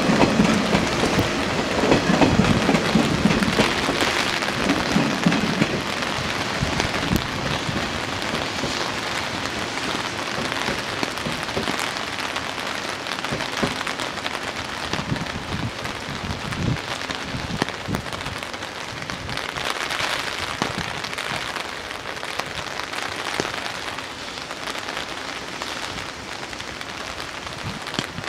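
Steady rain hissing. In the first few seconds the low running sound of an electric train is heard over it, fading as the train draws away.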